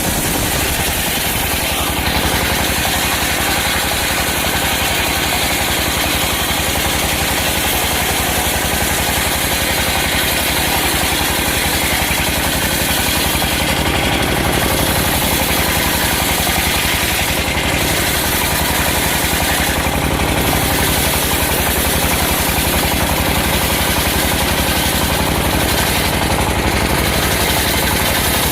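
Engine-driven circular sawmill running steadily, its motor keeping up a fast, even beat under a continuous mechanical din.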